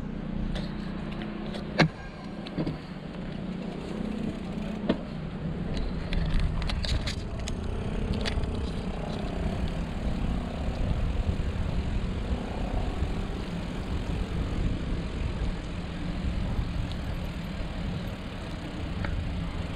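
Wind rumbling on the microphone and tyres rolling on wet asphalt as a loaded touring bicycle rides along a town street. A few sharp clicks and knocks come through about two and five seconds in.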